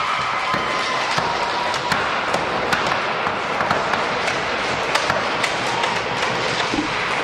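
Spectators clapping and cheering in a gym hall after a goal in junior inline hockey: a dense, steady clatter of many irregular claps over a rush of voices.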